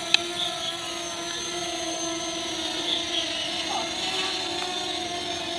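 Fimi X8 Mini quadcopter's motors and propellers running at a steady pitch, a whine with several overtones. A sharp click comes just after the start.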